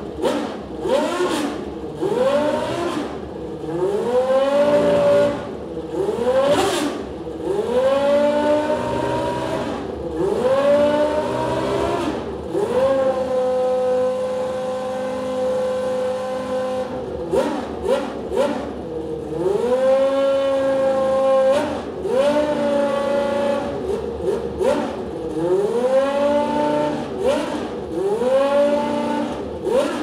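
Toyota TS010's naturally aspirated 3.5-litre V10 racing engine warming up, the throttle blipped again and again so the revs rise sharply and drop back, with the revs held steady for a few seconds near the middle.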